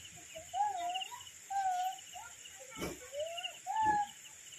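A bird singing a series of short, wavering whistled notes over a steady high-pitched drone of insects. A single sharp knock sounds about three seconds in.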